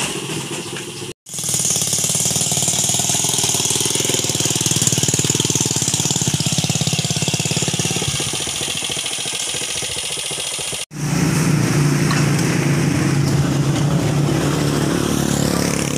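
Motorcycle-with-sidecar tricycle engine running as the loaded tricycle pulls away and rides along a road. The sound breaks off twice, about a second in and near eleven seconds, and after the second break it is a steadier, lower hum.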